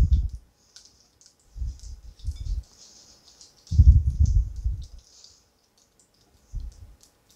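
Hands tearing slices of American cheese into a glass bowl of beaten eggs with a wire whisk in it: faint light clicks and ticks, with four short bouts of low dull thuds, the loudest about four seconds in.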